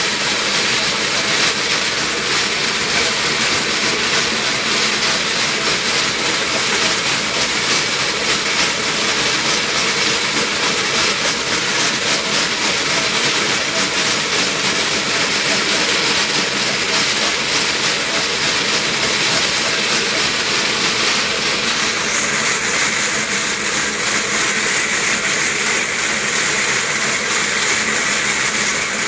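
Dog carpet mill spinning under a running dog: a steady, loud whir with a fast rattle. Its tone shifts about 22 seconds in.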